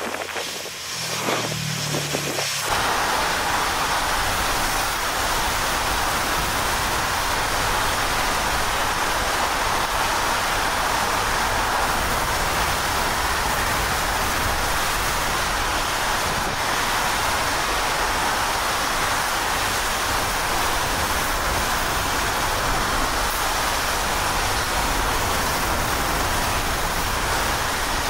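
Steady rushing noise of hurricane-force wind, unbroken for over twenty seconds after a quieter opening couple of seconds with a low hum.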